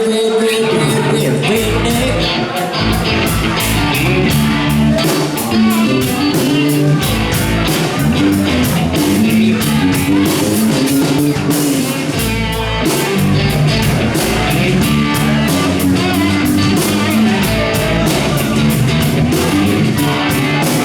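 Live country-rock band playing an instrumental intro: guitars over a steady drum beat.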